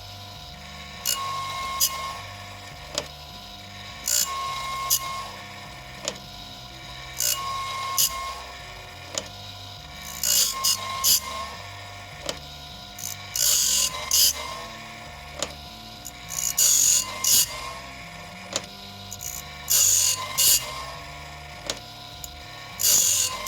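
Automatic bandsaw blade sharpener running through its cycle about once every three seconds: clicks as the advancing arm steps the blade on to the next tooth, a short rising whine, and the hiss of the grinding wheel dressing that tooth.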